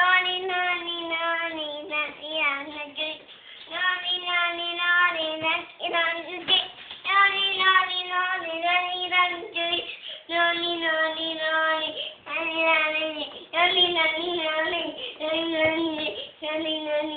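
A little girl singing on her own, in phrases of held notes with short breaks between them.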